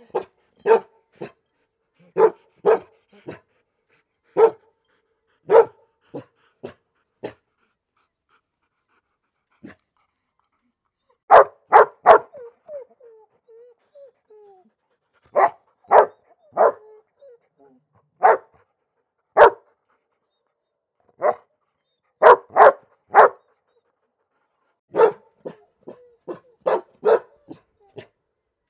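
Dog barking in irregular clusters of short, sharp barks with pauses between them, and brief whining after a loud burst of barks about eleven seconds in.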